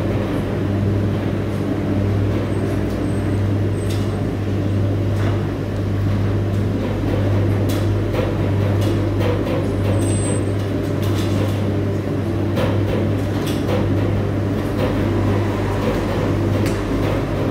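Ipso WE165 35 lb commercial front-load washer tumbling a load of bed linen mid-wash: a steady low motor hum with occasional faint clicks and knocks from the turning drum.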